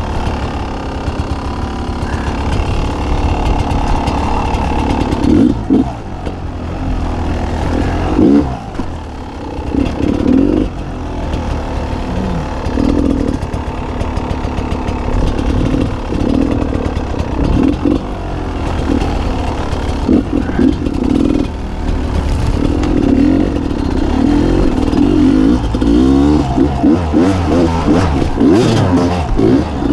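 Beta 300 RR two-stroke enduro motorcycle engine on the trail, revved up and dropping back again and again in short surges.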